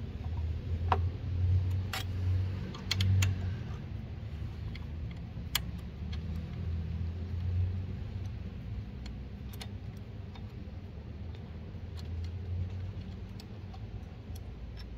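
Scattered light metallic clicks and ticks of a steel Allen key and bracket screws being worked loose from an e-bike's footpeg bracket, over a low rumble that is strongest in the first few seconds.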